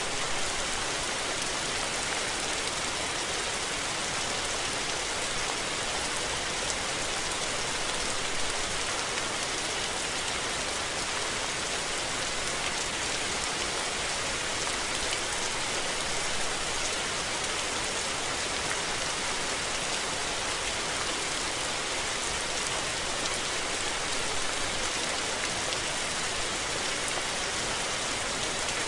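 Steady, even rain falling, a dense hiss of drops spattering on surfaces, with no thunder.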